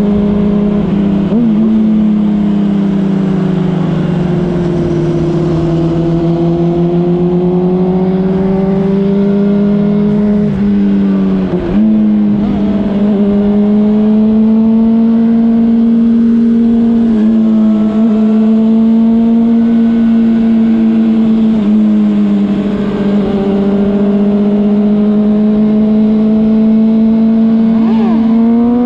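Honda CBR600RR inline-four engine running at highway speed over wind and road noise. Its pitch drifts slowly up and down with the throttle, dips briefly about twelve seconds in, and climbs quickly near the end.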